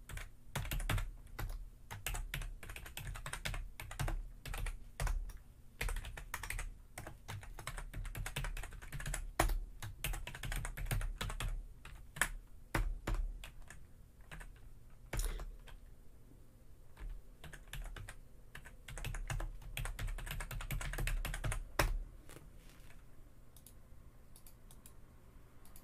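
Typing on a Sharkoon Skiller membrane (non-mechanical) computer keyboard: an irregular run of key clicks that stops a few seconds before the end, leaving only a few faint clicks.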